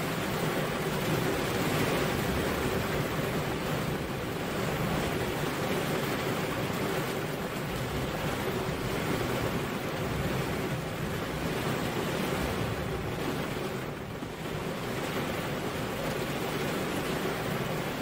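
Steady rain falling, an even hiss with a slight lull about three-quarters of the way through.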